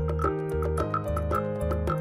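Instrumental background music with a steady beat: a pulsing bass line, sustained notes and short repeated high notes over light ticking percussion.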